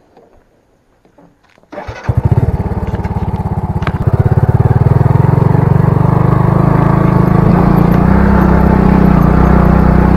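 Bajaj V15 motorcycle's single-cylinder engine starting about two seconds in after a quiet spell, firing in fast pulses and then running steadily.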